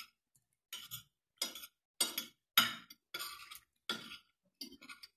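A spoon and fork scraping and clinking against a nearly empty plate as the last of the food is gathered up. There are about eight short strokes in a steady run.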